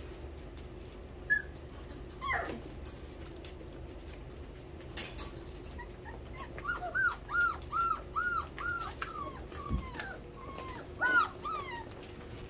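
Four-week-old miniature Bordoodle puppies whimpering and yipping in short, high calls. There is a falling squeal about two seconds in, then a quick run of about seven yips past the middle, and a few more near the end.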